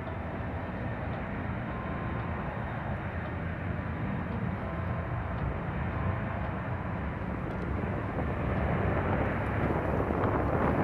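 Boeing 737-700's twin CFM56-7B turbofan engines at takeoff thrust during the takeoff roll: a steady jet roar that grows louder toward the end.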